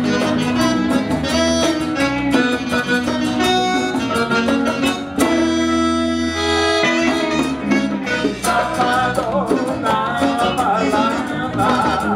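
Live Latin band music with a saxophone playing the lead over acoustic guitar and percussion, holding one long note about midway.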